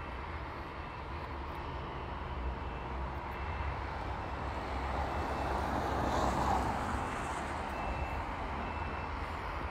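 Street traffic: a steady low rumble with a vehicle passing, swelling about six seconds in and fading again.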